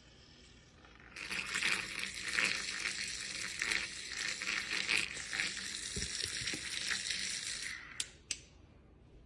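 Liquid in a mug swirling and fizzing with a crackling hiss for about seven seconds, then two sharp clicks.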